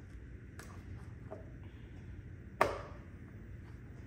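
Handling noise from a robot vacuum taken apart on a work surface: a few light clicks, then one sharp knock about two and a half seconds in.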